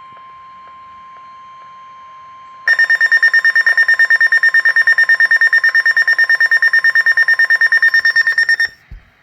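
Weather radio alert: the broadcast's steady alert tone sounds, then about three seconds in the receiver's built-in alarm joins it with a loud, rapidly pulsing high-pitched beeping. Both cut off suddenly near the end, followed by a short low thud.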